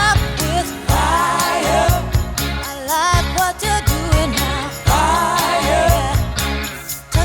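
Pop-soul song with female vocals singing over bass and drums.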